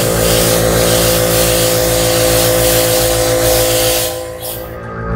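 Airbrush spraying a light coat of paint, a steady hiss of air, over the steady hum of a small airbrush compressor running. The spray hiss dies away about four seconds in while the compressor hum goes on.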